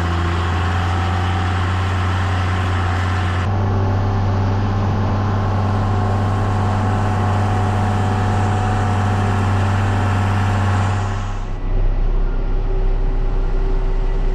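Tractor engine running steadily at a constant pitch. The sound changes abruptly twice, about three and a half seconds in and again near the end, where the hum drops lower.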